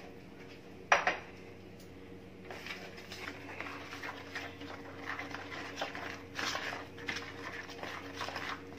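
A metal spoon scraping and stirring flour and water into a dough in a plastic bowl, in uneven strokes. There is a single sharp knock about a second in, and a low steady hum throughout.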